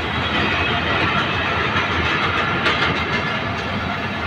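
Passenger train coaches rolling past at close range: a steady rumble and rush of steel wheels on the rails, with a few sharp clicks in the middle.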